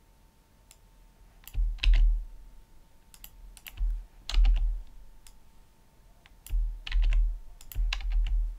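Computer keyboard being typed on in short bursts of clicks, each burst with a dull low thump under it, in clusters about a second in, near four seconds, and again towards the end.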